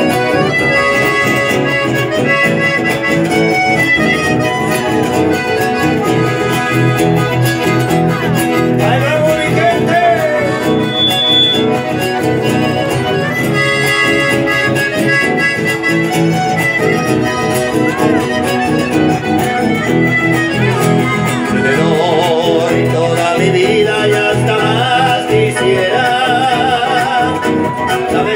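Live chamamé music played through a PA: a piano or button accordion carrying the melody over strummed acoustic guitars.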